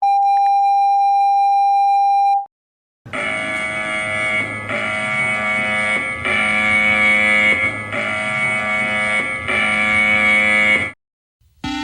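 Electronic emergency alert tones: a steady single beep tone held for about two and a half seconds, then after a short gap a harsh, buzzing multi-tone alarm that switches back and forth between two patterns about every one and a half seconds. It cuts off, and a rising siren begins at the very end.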